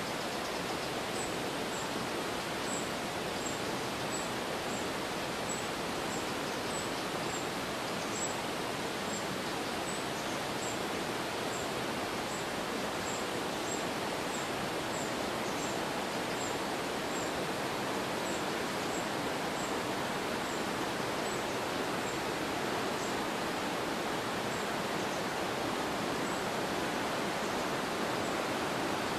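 River Tay rapids rushing steadily below the bridge, a constant even roar of white water. A faint, very high chirp repeats about twice a second throughout.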